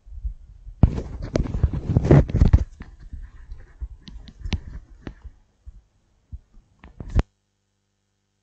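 Rustling and scraping of a clip-on lapel microphone against clothing as the wearer moves, loudest for about two seconds near the start, followed by scattered small clicks and knocks that stop abruptly near the end.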